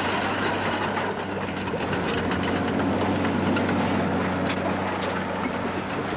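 A tracked lifeboat launching tractor's engine running with a steady hum, with the clank of caterpillar tracks and water splashing as the lifeboat carriage is pushed into the sea.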